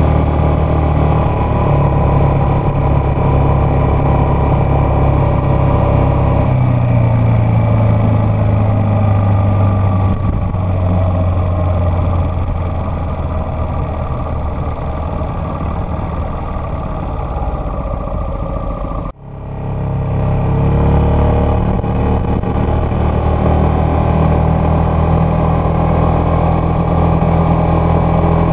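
Yamaha X-Max 250 scooter's single-cylinder four-stroke engine running under way, its note shifting as the throttle changes and easing off in the middle. The sound cuts out briefly about two-thirds of the way through, then the engine picks up again, rising in pitch as it accelerates.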